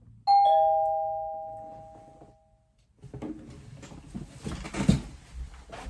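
Two-note ding-dong doorbell chime, a higher note then a lower one, ringing out and fading over about two seconds. After a short gap comes a stretch of rattling clicks and knocks, with the loudest knock near the end.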